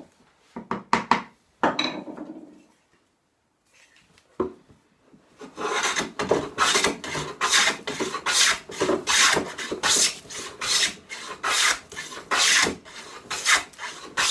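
A few wooden knocks as a board is positioned, then a hand plane with a cambered iron taking quick strokes along the face of the board, about two rasping strokes a second, to flatten it.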